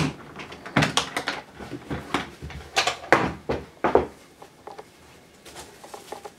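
Hard plastic carrying case being handled and opened: a quick series of sharp clicks and knocks from the plastic shell and lid, then quieter rubbing and handling of the foam insert after about four seconds.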